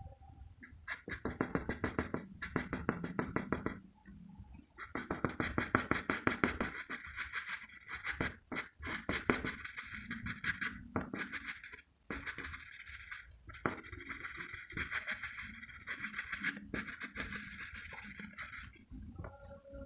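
Graphite pencil rubbing back and forth on paper in fast shading strokes, in several runs broken by brief pauses where the pencil lifts.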